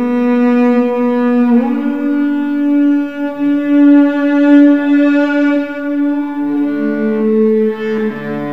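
Solo cello improvisation: long sustained bowed notes that change pitch about one and a half seconds in and again near the end.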